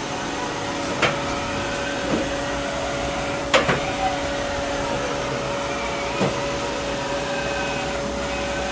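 Haas VM2 vertical machining center jogging its table along the X-axis from the remote jog handle: a steady whine from the axis drive over the machine's steady hum, with a few sharp clicks.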